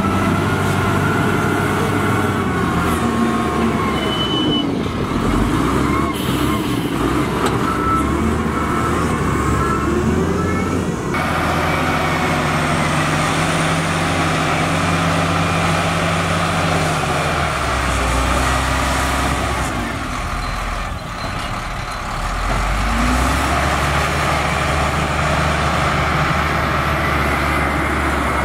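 Wheel loader diesel engines working sand, running steadily and revving up and down as the bucket is pushed into the sand and moved. The sound changes abruptly about eleven seconds in, from the DISD SD300N loader to the Matador ML50 loader.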